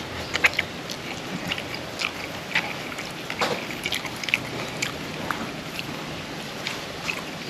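A person eating: chewing and mouth smacks, heard as scattered short wet clicks at an irregular pace over a steady background hiss.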